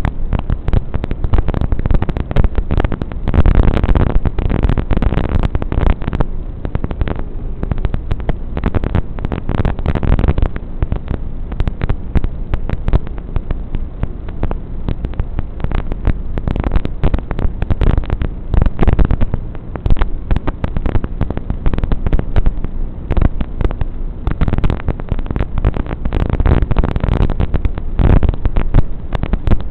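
Loud, continuous crackling static with a low rumble and no clear tone: the noisy audio track of an analog FPV DVR recording.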